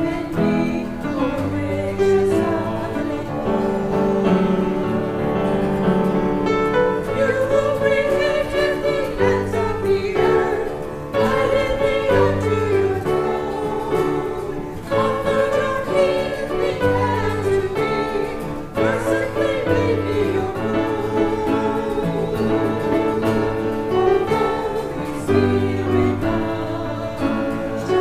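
A choir singing a hymn with instrumental accompaniment, with a steady moving bass line under sustained voices.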